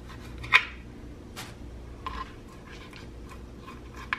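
Small paring knife scraping seeds off a roasted chile on a cutting board: one sharp knock of the knife about half a second in, then soft scrapes and light scattered ticks.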